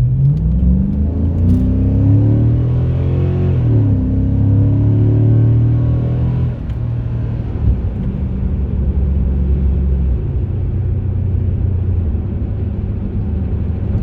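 A 2007 Chrysler 300C's 5.7-litre Hemi V8 accelerating hard, heard from inside the car: the revs climb, drop at a gear change just under four seconds in, climb again, then ease off about six and a half seconds in to a steady cruise.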